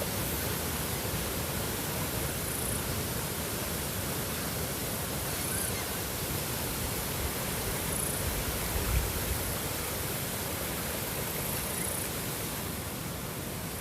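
Steady rushing of water, an even, unbroken noise with no music, and a soft low thump about nine seconds in.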